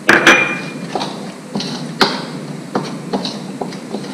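Steel spoon clinking and scraping against a ceramic bowl as a dry gram-flour mix is stirred. Two sharp clinks with a short ring open it, followed by lighter, irregular taps.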